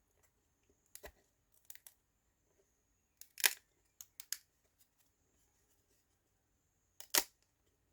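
Small laser-cut wooden puzzle pieces being worked by hand: a handful of brief scrapes and clicks, the loudest about three and a half seconds in and another near the end.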